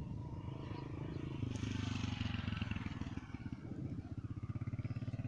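Small motorcycle engine running as the bike rides past close by on a wet road, with tyre hiss swelling as it passes about a second and a half in, then the engine note carrying on as it moves away.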